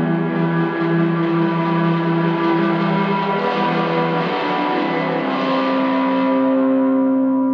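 Ambient background music of long, held drone notes that move to new pitches about halfway through.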